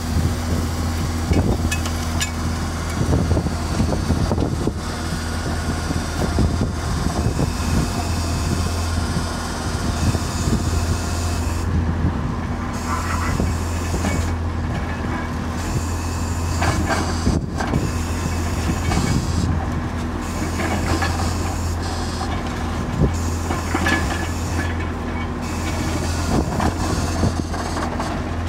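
Homemade well-drilling rig at work, powered by a modified Muir Hill tractor and a Holman compressor. A steady low engine drone runs under irregular knocks and clatter from the drilling.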